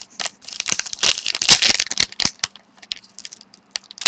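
Trading card packs and wrappers being handled: a dense crinkling and rustling of plastic foil with many small clicks, busiest in the first half and thinning out later.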